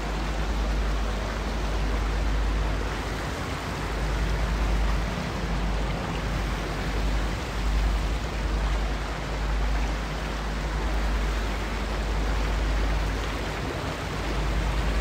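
Shallow mountain stream rushing over rocks and small rapids, a steady, even rush with a deep rumble underneath.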